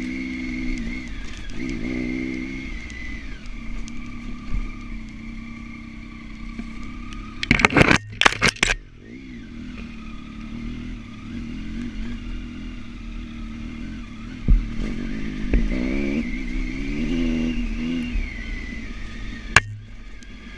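Honda Africa Twin adventure motorcycle engine running on a dirt trail, the revs rising and falling with the throttle, with a steady high whine over it. About 8 s in comes a short burst of loud clattering and scraping.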